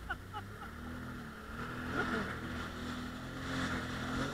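Jet ski engine running steadily at speed, with water rushing past the hull. A few short high chirps sound right at the start.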